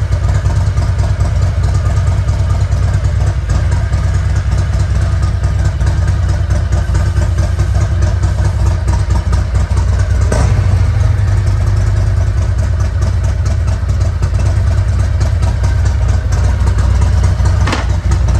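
Harley-Davidson Road Glide Special's 131-cubic-inch V-twin idling steadily, with a short sharp knock about ten seconds in and another near the end.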